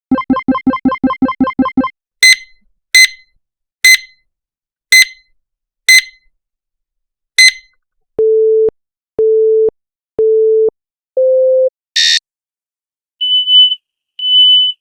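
A run of electronic beep sound effects one after another: first a buzzy tone pulsing about six times a second, then six sharp short beeps at uneven spacing. Then come four steady mid-pitched tones, the fourth a little higher, a short hissy blip, and two high beeps near the end.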